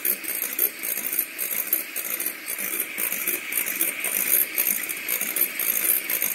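Electric mixer running steadily, its beaters whipping egg whites in a bowl toward stiff peaks, a constant whine with a fast rattling clatter of the beaters against the bowl.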